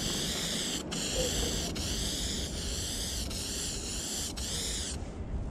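Aerosol spray-paint can hissing as paint is sprayed in long sweeping strokes to fill in a wall piece. The hiss wavers in tone, breaks off briefly about once a second between strokes, and stops shortly before the end.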